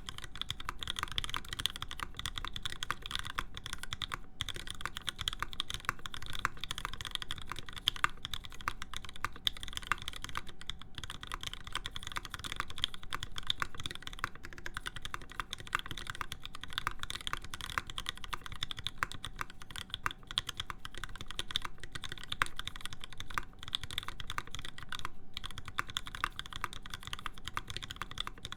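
Mechanical keyboard typed on continuously at a fast pace, with dense overlapping keystrokes. It is fitted with lubed Alpaca linear switches, a full aluminum plate and PBT keycaps.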